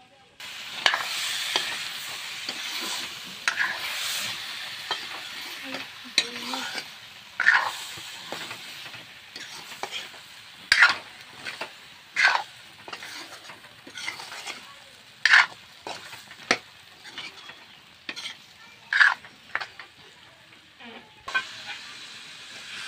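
Potato and onion curry sizzling in a metal wok while it is stirred with a metal ladle. The ladle scrapes and clanks sharply against the pan every few seconds over a steady frying hiss.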